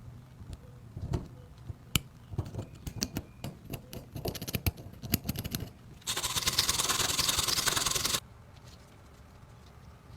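Irregular scraping and light tapping of tools on a workpiece, then about two seconds of loud, steady rasping that cuts off suddenly.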